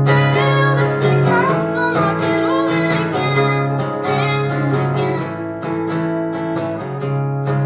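Live song on strummed acoustic guitar, with a woman's voice singing a melody over it during the first few seconds.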